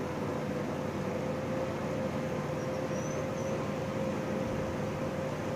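Steady whirring hum of grow-room ventilation fans and air handling, with one constant humming tone.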